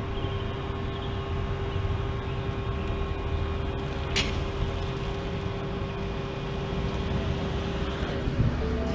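Car engine and road noise picked up through the hood it rests on, a steady low rumble with a constant hum, and a single click about four seconds in.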